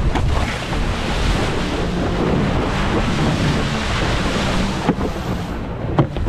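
Wind buffeting a head-mounted action camera's microphone over the rush of water as a wakeboard is ridden at speed, with a few sharp knocks from about five seconds in.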